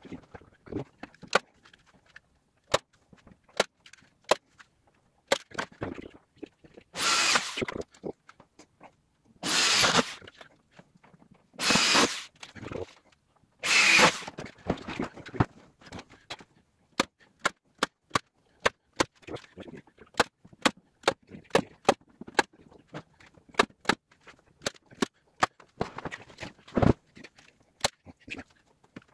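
Corded electric drill run in four short bursts of about a second each, then a long string of sharp clicks, about two a second.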